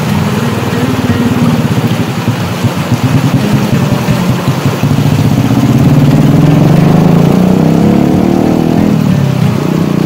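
A motor engine runs under the steady rush of water. About halfway through it climbs in pitch as it revs, peaks, then drops back shortly before the end.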